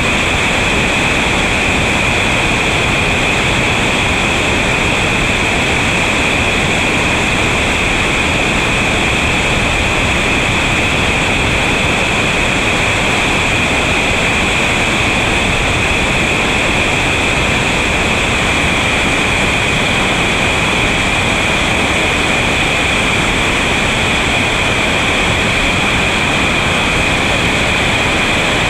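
Steady, unbroken rushing of heavy whitewater rapids running at high water.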